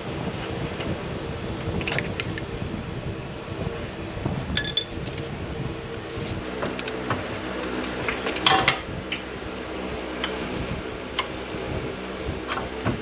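Metal hand tools clinking and knocking against the steel bolts and bracket of a car's torque mount: scattered single clinks, some with a brief metallic ring, the loudest about eight and a half seconds in, over a steady low hum.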